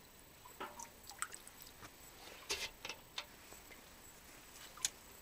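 Water dripping and splashing faintly as a full metal bucket is lifted out of a shallow spring pool: a few scattered drips and small splashes over several seconds.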